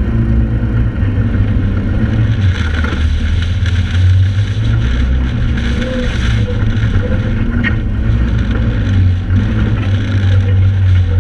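Joyner 1100 Sandviper sand rail's engine running under throttle while driving over sand dunes, a loud low drone that swells and eases as the throttle changes.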